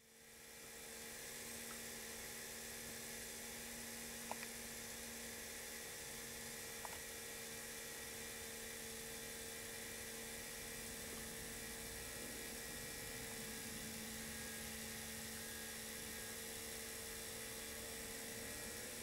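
Steady electric hum with a higher whine over a faint hiss, unchanging throughout, with two light clicks about four and seven seconds in.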